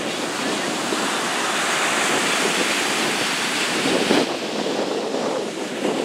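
Atlantic surf breaking and washing up onto the beach: a steady rushing wash of waves, swelling a little about four seconds in.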